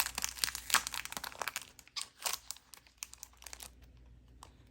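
Packaging crinkling and rustling as it is handled, dense for about the first three and a half seconds and then thinning to a few light clicks.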